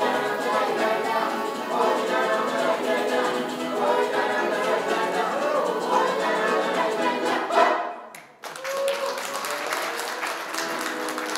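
Roma song performed live on accordion and acoustic guitar with a woman and a man singing. It breaks off suddenly about eight seconds in and gives way to audience applause.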